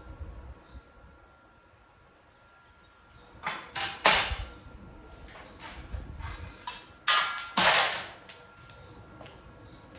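A series of short knocks and scraping sounds of objects being handled, loudest in two clusters in the middle and later part, with a few lighter clicks between.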